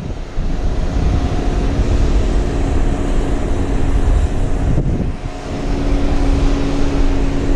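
Wind buffeting the microphone on a beach, a heavy low rumble over the surf, with a steady low hum that comes in about halfway through.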